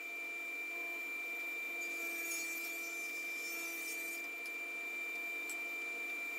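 SawStop table saw running with a steady whine, its blade cutting through a softwood board on a resaw pass for about two seconds in the middle, then running free, with a couple of light clicks as the board is fed back in.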